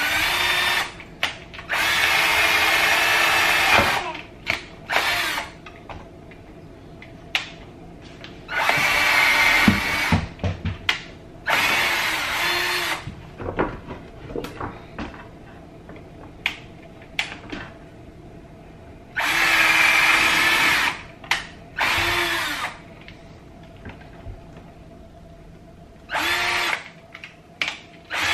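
Cordless drill boring holes through a pine board, running in repeated bursts of up to about two seconds at a steady pitch. Between the bursts come short knocks and clicks as the drill and board are handled.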